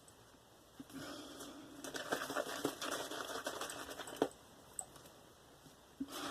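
Omega boar-bristle shaving brush working thick, wet lather over the face: a soft, crackling patter of bristles and bubbles. It starts about a second in, stops with a sharp click a little after four seconds, and picks up again near the end.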